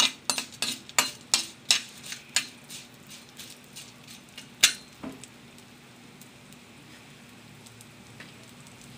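Metal ladle clinking and scraping against a kadai while urad dal, mustard seeds and cumin are stirred in hot oil for a tempering: about three strokes a second that fade over the first few seconds, with one last sharp clink about halfway through. After that, only the faint sizzle of the frying oil.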